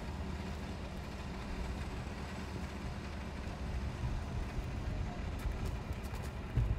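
Toyota 80 Series Land Cruiser winch truck's engine running steadily with a low rumble, with a brief low thump near the end.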